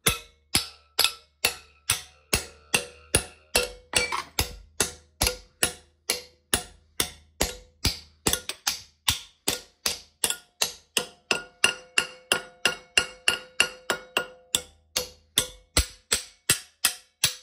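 Ball-peen hammer striking a metal plate clamped in a milling-machine vise to bend it at a right angle. Steady blows, about two and a half a second, each with a short metallic ring.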